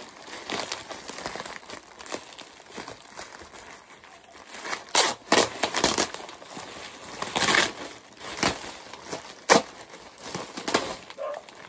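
Thin white plastic bags rustling and crinkling as they are pulled out of a parcel and crumpled, in irregular bursts with several sharper, louder crackles from the middle onwards.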